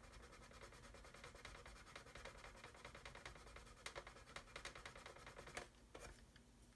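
Faint, rapid rasping of a sanding stick rubbed back and forth over a plastic model hull, smoothing down the bow. The strokes ease off near the end.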